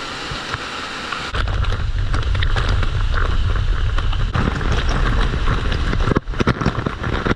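Steady rush of a waterfall; about a second in, loud low rumbling with scattered knocks and clatter, like wind or handling noise on the microphone, covers it, dipping briefly near the end.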